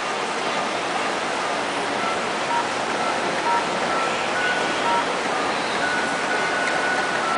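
Touch-tone (DTMF) keypad beeps from a phone call as a number is keyed in, short beeps about every half second and one longer tone near the end, over a steady hiss. The tones are digits entered into a credit card company's automated phone system.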